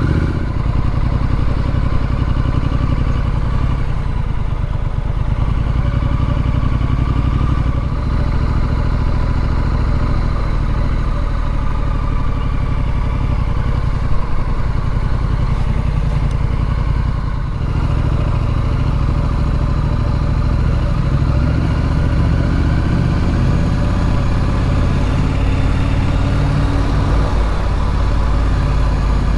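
Triumph Street Scrambler's parallel-twin engine running steadily under way. It eases off briefly about two-thirds of the way in, then its pitch climbs as it pulls away again.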